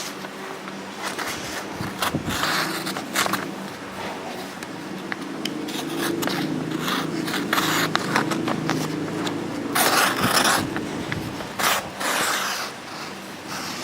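Multi-tool knife blade of Sandvik 12C27 steel slicing through paper in several short scraping strokes, the loudest about ten seconds in. The blade still cuts cleanly, a sign that its edge is still very sharp.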